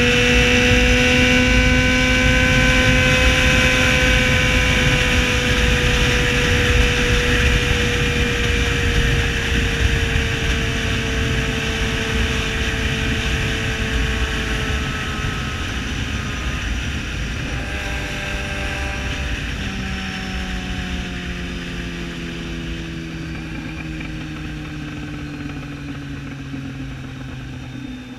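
Yamaha XJ6's 600 cc inline-four motorcycle engine with a loud exhaust note, its revs falling slowly so the pitch glides down and the sound gets gradually quieter, over a steady rush of wind and road noise.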